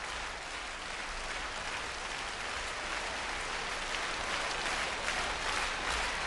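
Concert hall audience applauding steadily, the clapping growing slightly louder toward the end.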